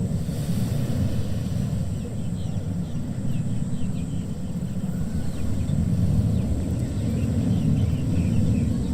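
Ocean waves breaking and washing on a beach: a steady low rumble of surf.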